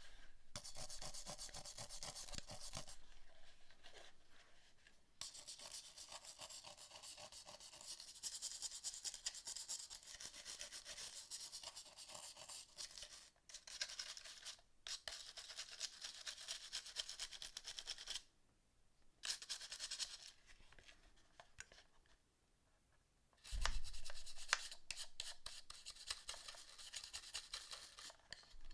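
Scrubbing and rubbing on the plastic parts of a PS4 controller being cleaned, in stretches broken by short pauses. A louder knock comes about three quarters of the way through.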